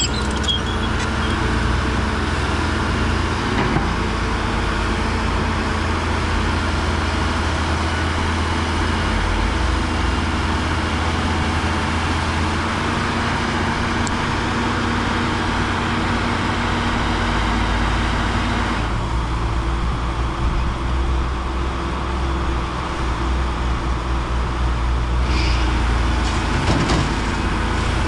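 Diesel engine of heavy earthmoving machinery running steadily, with a deep, even drone; the sound changes character about two-thirds of the way through, its upper hiss dropping away.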